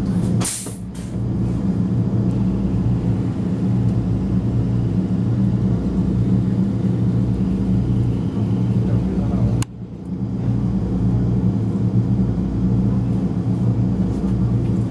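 Vienna U-Bahn train running, a steady low hum heard from inside the carriage. A short hiss comes about half a second in, and a click with a brief drop in the sound comes about ten seconds in.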